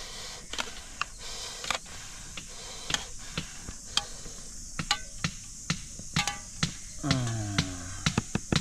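Metal cooking pots and utensils clinking and knocking at irregular intervals over a steady high hiss, as a cooking pot is handled and emptied.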